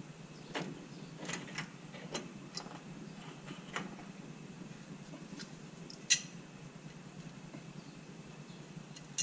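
A 1994 Ford F150 4x4's front hub and brake rotor being worked off the spindle: light metallic clicks and scrapes, then a sharper clink about six seconds in.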